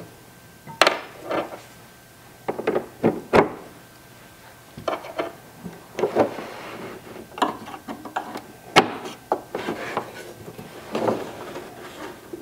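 Irregular clicks, knocks and short rubbing sounds as the door handle's toothed rack mechanism is worked by hand and reset one tooth over to fix the latch timing. The sharpest knock comes about nine seconds in.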